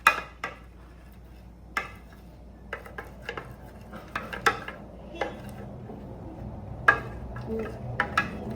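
A spoon clinking and scraping against a container while glue and paint are stirred for slime, in a dozen or so irregular knocks.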